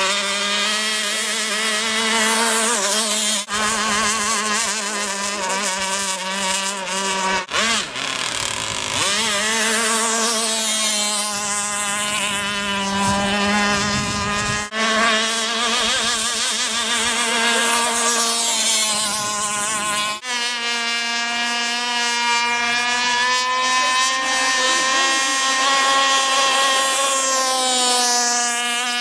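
Electric RC racing boats running flat out: a high-pitched motor and propeller whine that wavers up and down in pitch as the boats turn, with a sweeping rise and fall each time one passes close.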